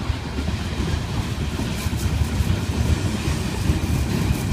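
Freight train's covered hopper cars rolling past, a steady low rumble of steel wheels on the rails.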